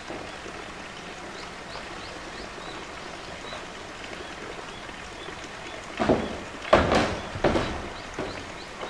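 Blue plastic tank pushed about on concrete by a polar bear: about four loud knocks in the last three seconds, the second one the loudest.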